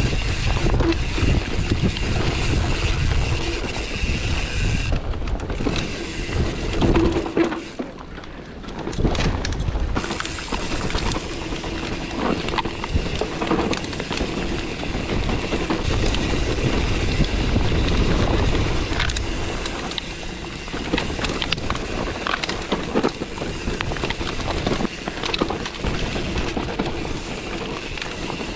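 Mountain bike descending a dirt trail, heard from a camera on the bike: wind buffeting the microphone, tyres rolling over dirt, and the bike rattling and clicking over the bumps. It goes quieter for about two seconds around a third of the way in.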